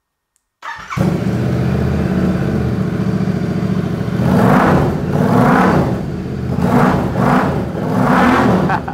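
Royal Enfield Interceptor 650's parallel-twin engine, fitted with Baak bobber exhaust pipes and a DNA air filter, is started on the electric starter about half a second in and catches at once. It idles steadily, then is revved in about five quick throttle blips from around four seconds in.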